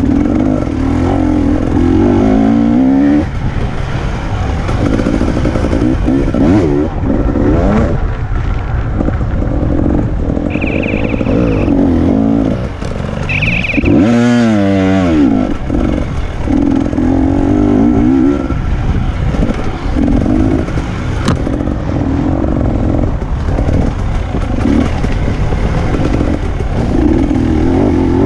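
Enduro motorcycle engine being ridden hard off-road, its revs rising and falling again and again with the throttle and gear changes, with a deep drop and climb back up about halfway through. Two brief high-pitched tones sound a little before the halfway point.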